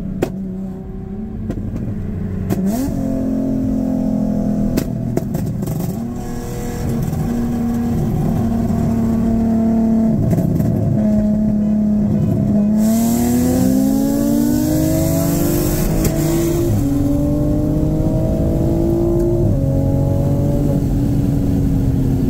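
Infiniti G35's 3.5-litre V6 engine run hard at high revs for a long stretch. Its pitch holds mostly steady, then sweeps up twice after the middle and drops back in steps.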